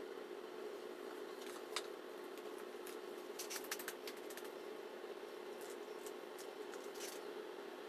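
Spatula working a bowl of clear lip gloss base: a few faint clicks and taps, one quick cluster of them in the middle, over a steady background hum.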